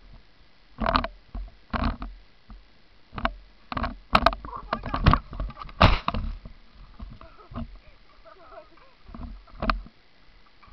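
A skier's head-on collision and fall in deep snow, heard from a body-worn camera: a string of irregular knocks, thumps and scrapes of skis, poles and snow against the camera, bunched in the first six seconds with one more near the end.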